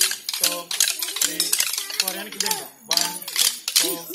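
Kolatam dance sticks struck together in a steady rhythm of sharp wooden clacks, about three a second, as the dancers keep time. Group voices chant along over the clacking.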